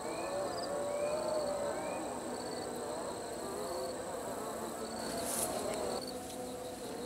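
Evening insect chorus: a steady high buzz with short chirps repeating under a second apart. Beneath it, a distant voice chants in long wavering notes: a call to prayer.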